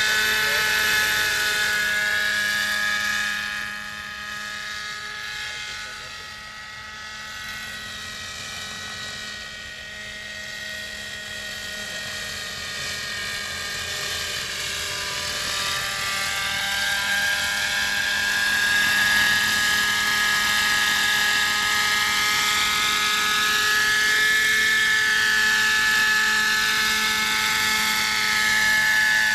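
Homemade coaxial radio-controlled model helicopter with a Webra 50 two-stroke glow engine in flight: a steady high-pitched engine whine over the rotor noise. It goes quieter from about three seconds in, grows louder again from about halfway, and its pitch rises and falls.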